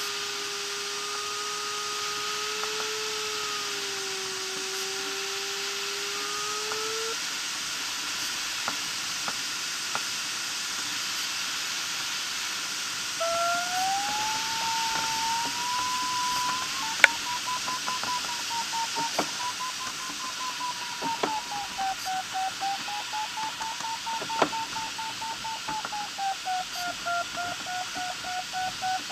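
Airflow rushing past a glider's canopy, with the electronic variometer's audio tone over it. For the first seven seconds the vario gives a steady low tone. From about thirteen seconds it gives a higher tone that breaks into quick beeps and wavers up and down in pitch, the vario signalling climb as the glider circles in lift. A few sharp clicks sound now and then.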